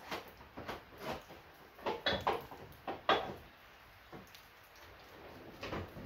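Irregular knocks and clatters of objects being shifted and set down while someone rummages through workshop shelves, several separate bumps a second or so apart.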